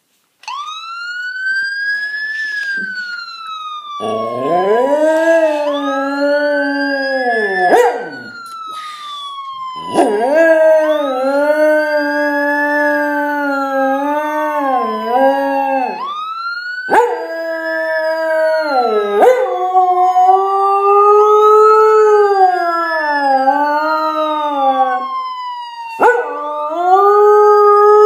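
A police siren's rising and falling wail, with a husky howling along to it. The siren is heard alone at first; the dog joins about four seconds in with a string of long, wavering howls broken by short pauses for breath.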